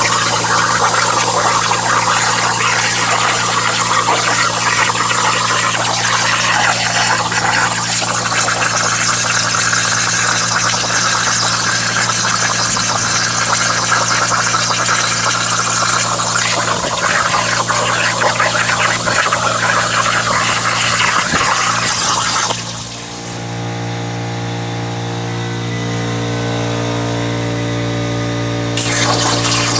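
Hypertherm 45XP plasma cutter cutting metal on a CNC plasma table: a loud, steady, hissing arc. The arc cuts off suddenly about 22 seconds in, leaving a steady hum with a few whining tones. The cutting hiss starts again about a second before the end.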